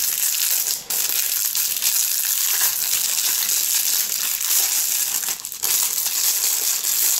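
Clear plastic film crinkling continuously as it is handled and pulled off a phone case, with two brief pauses.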